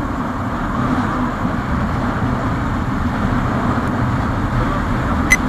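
Hero Super Splendor motorcycle riding at a steady cruising speed: the small single-cylinder engine running under a steady rush of wind and road noise on the microphone. A short click near the end.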